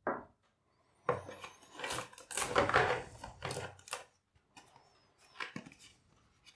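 Box contents and packaging being handled: a sharp click, then a few seconds of rustling with knocks and clicks, tapering to a few light taps near the end.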